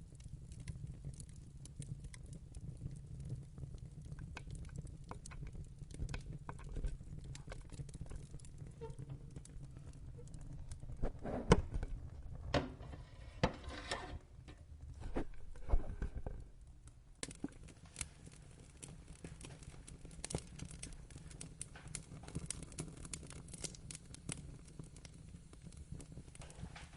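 Wood fire burning in a fireplace: steady low rumble of the flames with scattered crackles, and a run of louder pops and snaps about halfway through.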